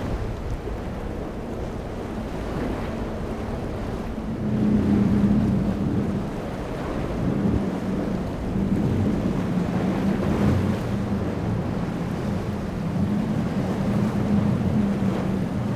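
Triple outboard engines of a center-console boat running at speed, a steady drone, with rushing water and spray from the hull in rough waves and wind noise on the microphone. It gets louder about four and a half seconds in.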